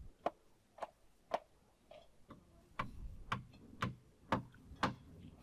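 Hammer striking nails into wooden beam formwork: a steady series of sharp knocks, about two a second.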